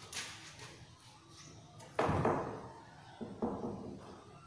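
Wooden ladder being handled against the wall and floor: a sharp thump about two seconds in, then two smaller knocks a second later.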